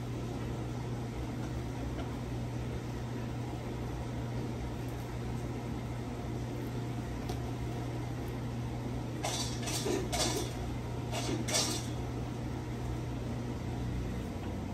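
Steady low hum of a running household appliance, with a few short bursts of fabric rustling a little past halfway through as a satin bonnet's ties are pulled and knotted close to the microphone.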